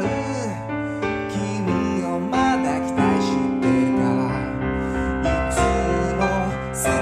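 Kawai piano playing a pop ballad arrangement: sustained chords in the low and middle range with a melody line over them.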